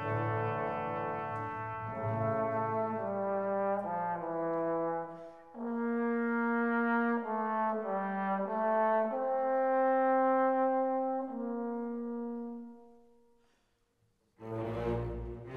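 Background music: a slow melody of held notes that fades away, followed after a short gap by a new track starting near the end with a deeper bass.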